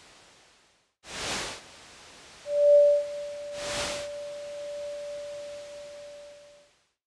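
Electronically generated steady sine tone, one pitch tuned to the paint colour by a colour sensor. It starts about two and a half seconds in with a bright attack and holds for about four seconds before stopping. Two short swooshes of noise come about a second in and near the middle, and a soft hiss fades out at the start.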